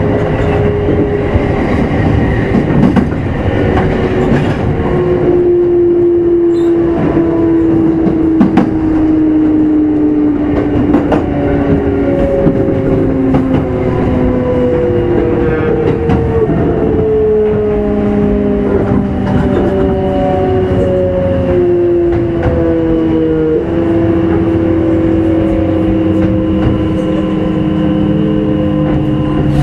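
Onboard running sound of a Kintetsu 5200 series motor car: the traction motor and gear whine falls slowly in pitch as the train slows, over the rumble of wheels on rail with clicks at the rail joints.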